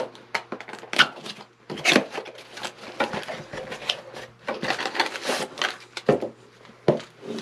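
Cardboard box being opened and unpacked by hand: the flaps and inner cardboard tray scrape and knock, with a few sharp knocks on the wooden desk and the rustle of the product's wrapping.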